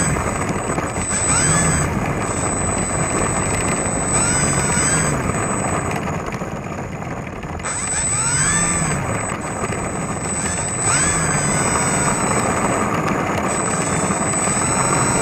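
Electric motors and propellers of a twin-motor RC foam plane, picked up by a camera on the airframe while it taxis. The motors are throttled up and back down in short blips, each a pitch that rises and falls over about a second. There is a steady high whine and a constant rushing noise.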